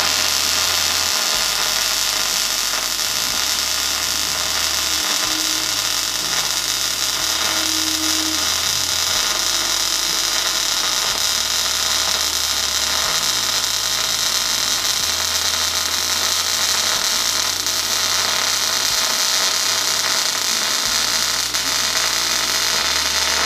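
Electric arc welder laying a continuous fillet weld on a steel T-joint: the arc makes a steady, loud crackling hiss without a break.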